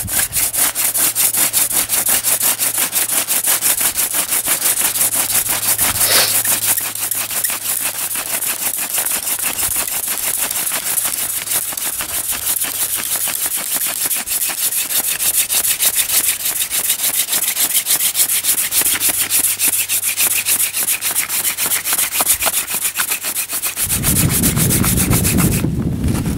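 Wooden hand-drill spindle spun rapidly back and forth between the palms, its tip grinding in the notch of a hearth board: a fast, steady rasping friction, worked to raise an ember for a fire. A low rumble comes in near the end.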